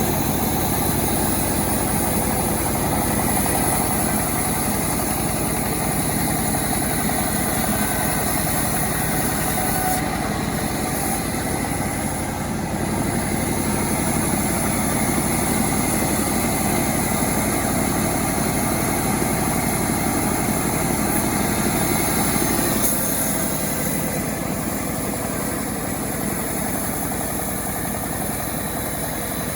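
Self-assembled chainsaw's small engine running steadily, dropping slightly in level about 23 seconds in.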